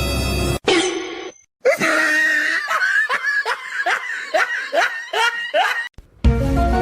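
Laughter: a run of about eight short bursts, each falling in pitch, roughly two a second, after a brief falling sound near the start.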